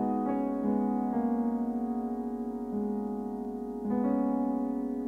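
Slow, soft chords played on an electric keyboard with a piano sound. Each chord is left to ring, with a new one struck every second or so and the loudest near four seconds in.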